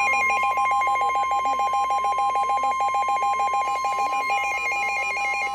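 Emergency alert attention signal: a steady electronic tone near 1 kHz with a second, lower tone beeping rapidly over it, about eight times a second.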